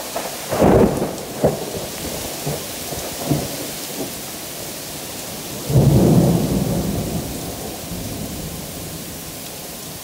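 Heavy rain falling steadily, with thunder: a short loud crack about half a second in, and a longer, louder rumble starting around six seconds that slowly dies away.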